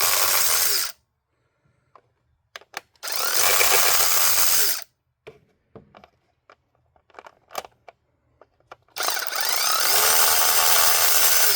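Pneumatic air ratchet running in three short bursts as it spins out the ignition coil hold-down bolts, with small clicks and knocks of handling between the bursts.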